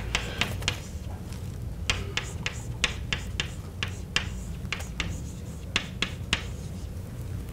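Chalk tapping and scratching on a blackboard while equations are written: a quick, irregular run of sharp clicks, about two a second, over a steady low hum.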